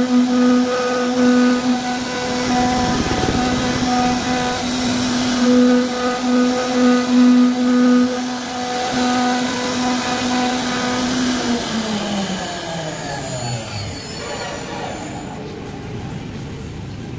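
CNC router spindle running with a steady hum as it cuts grooves into an MDF cupboard door panel, its loudness swelling and dipping with the cut. About twelve seconds in it shuts off, and the hum falls in pitch and fades as the spindle spins down.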